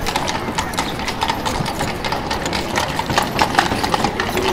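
Many horses' hooves clip-clopping on a street, the dense overlapping hoofbeats of horse-drawn traffic, added as a sound effect to silent film.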